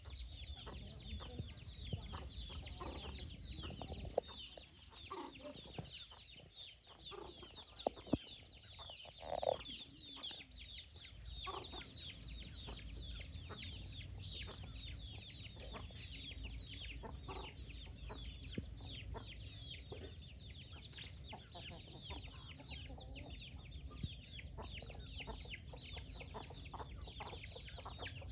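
A flock of chickens: a continuous chorus of high, short, falling peeps from young chicks, with occasional lower hen clucks, the loudest about nine seconds in. A few sharp clicks come in the first half.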